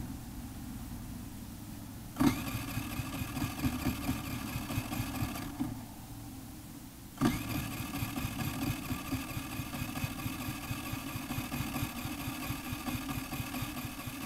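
2006 Baotian BT50QT-9D scooter's 139QMB four-stroke 50cc engine, with a DB Killer exhaust, starting about two seconds in, cutting out about three seconds later, then starting again and running. The engine failing to keep running is part of the engine trouble the scooter has.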